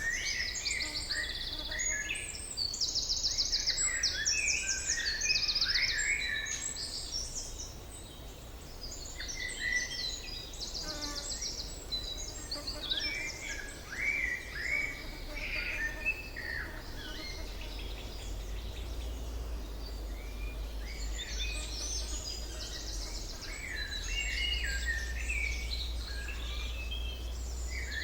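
Several forest songbirds singing and calling together, with short chirps, slurred notes and rapid trills, over a low steady rumble that grows stronger in the second half.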